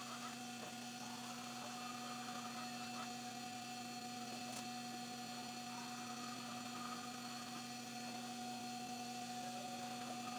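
Steady electrical hum in a workshop, with a few faint light metallic clicks as a hydraulic cylinder rod is screwed by hand into its threaded piston.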